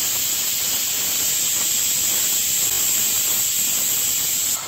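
Stovetop pressure cooker whistling: steam jets out past the weight valve in a steady, loud, high-pitched hiss, the venting that marks the cooker at full pressure.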